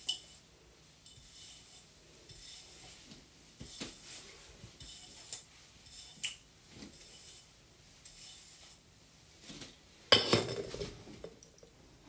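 Hairbrush strokes through long, dry hair: a soft rasping swish about once a second. About ten seconds in there is a louder clatter of something hard knocking on the counter.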